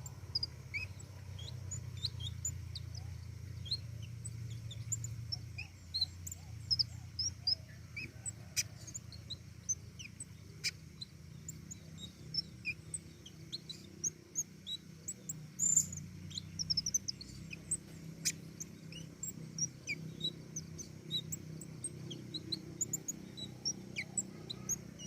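A pentis raja flowerpecker singing vigorously: many short, high chirps and twitters in quick, irregular succession, with a few sharp clicks. A steady low hum runs underneath.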